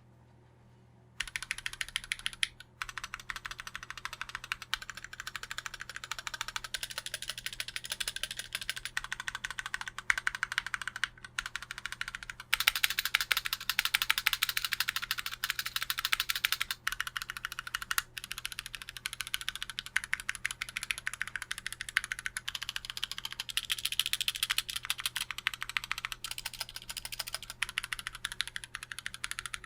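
Fast typing on a custom 65% mechanical keyboard: TOFU65 aluminium case with brass plate, unlubed Gateron Black Ink linear switches, stock Cherry screw-in stabilizers and OEM keycaps. A dense, continuous run of keystrokes starts about a second in and breaks off briefly a few times.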